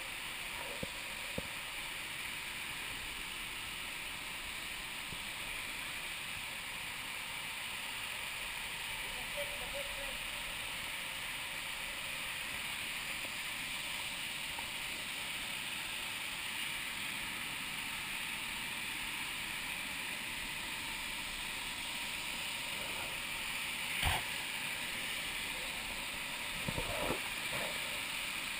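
Steady rush of a river and waterfall, with a couple of light clicks about a second in, and a sharp knock followed by a few bumps near the end.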